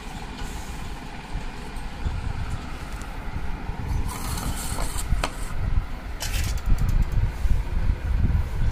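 Steady low rumble on the microphone, with a few sharp clicks and brief rustles. Near the end, neem leaves rustle as a hand grabs them from a steel bowl.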